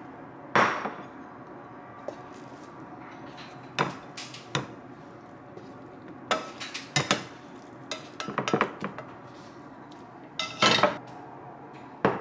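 Frying pan and utensils knocking and scraping against a ceramic bowl as a katsudon topping is slid from the pan onto rice: scattered sharp clinks, several in quick clusters.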